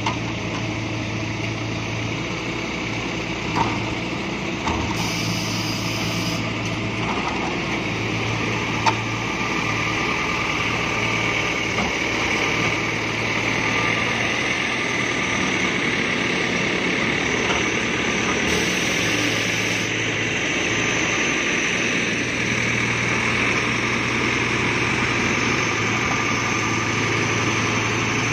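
Mini crawler excavator's engine running steadily as the machine tracks and swings, with a few light knocks and one sharper knock about nine seconds in.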